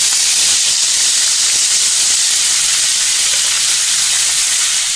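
Chopped onions sizzling in hot oil in a nonstick kadai, just after being added: a loud, steady, high hiss.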